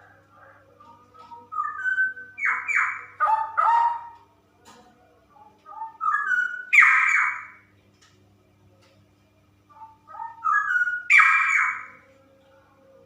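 Female straw-headed bulbul singing three loud, rich, bubbling warbled phrases of a second and a half to two and a half seconds each, with pauses of a few seconds between them.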